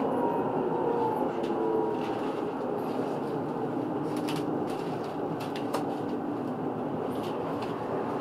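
Munich R2.2 low-floor tram running along the track, heard from inside: a steady rumble of wheels on rail with a faint electric drive whine, and a few light clicks around the middle.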